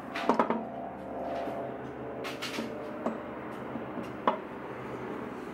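A few scattered light knocks and clicks, the loudest pair near the start and another about four seconds in, over a steady low hum.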